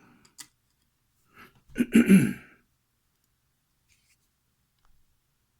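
A man clearing his throat once, a short rough burst about two seconds in.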